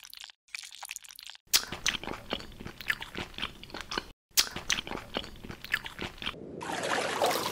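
Close-up crunching and chewing of crisp food: quick crackly bites, with a short pause about four seconds in. A steady hiss comes in near the end.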